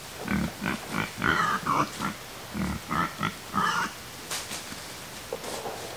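Pigs grunting in a quick run of short grunts for about four seconds, then only a few faint ones.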